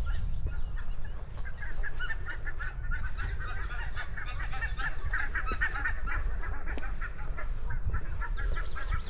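A flock of geese honking, many short overlapping calls, busiest around the middle, over a steady low rumble.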